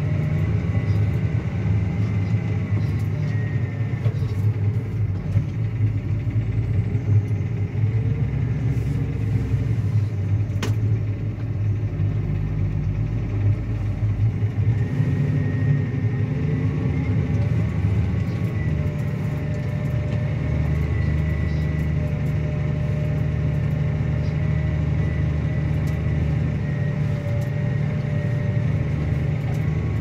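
Claas Axion 850 tractor's six-cylinder diesel engine running steadily under load, pulling a Kuhn Varimaster reversible plough through the soil. It is a continuous deep drone whose note shifts slightly a couple of times.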